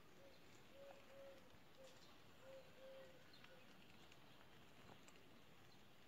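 A dove cooing faintly, a run of short, low coos, some in pairs, that stops about halfway through, over quiet outdoor background hiss.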